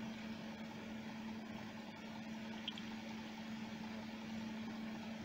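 Sealey MightyMig 140XT MIG welder's cooling fan running steadily with a constant hum, with one faint click about halfway through.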